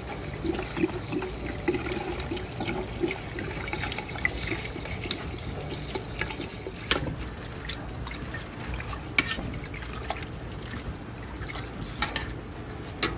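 Grain alcohol pouring and splashing from two upturned bottles onto lemon peels in a stainless steel pot, with a few sharp clicks along the way.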